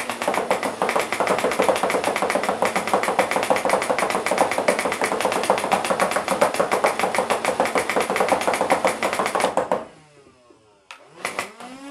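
Nerf Rival Prometheus, a hopper-fed flywheel foam-ball blaster, firing on full auto: a fast, even stream of shots over the steady whir of its motors for about ten seconds, then cutting off. Near the end come a few more clicks and brief whirring.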